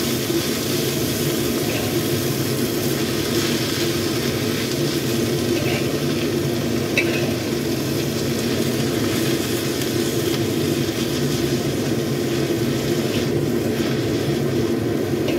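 Watercress sizzling in a hot oiled wok as it is stir-fried down to wilting, with a metal spatula tossing it and now and then clicking against the pan. A steady low hum runs underneath.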